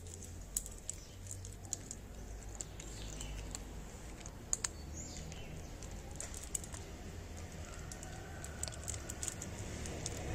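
Scattered sharp clicks and taps over a steady low rumble.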